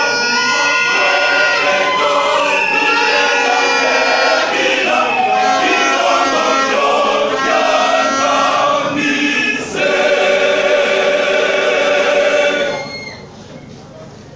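A choir singing in many voices together. The singing breaks off about a second before the end.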